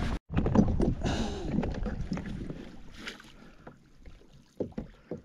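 Water sloshing and splashing around a small fishing kayak, fading away after the first couple of seconds, then two short knocks near the end.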